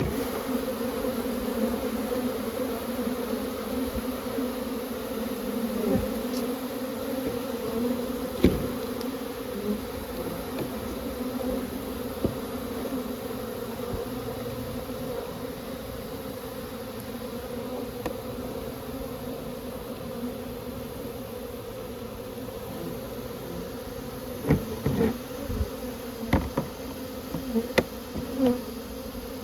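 Many honeybees buzzing steadily with a deep, even drone. A few sharp knocks come near the end.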